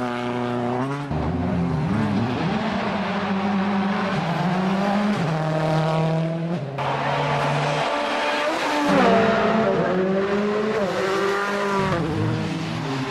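Rally car engines running hard as the cars pass, the engine note rising and falling through revs and gear changes. The note changes abruptly a couple of times where separate passes are cut together.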